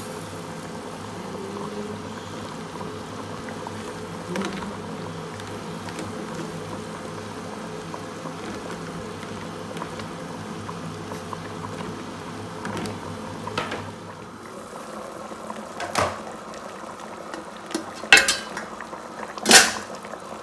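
Pot of cocoyam soup boiling steadily, then a few sharp clinks of a spoon against the pot in the last few seconds, louder than the boiling.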